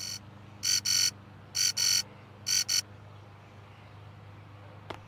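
Mobile phone sounding an electronic ring or alert: short high-pitched beeps in pairs, about one pair a second, that stop about three seconds in. A sharp tap or two comes at the very end.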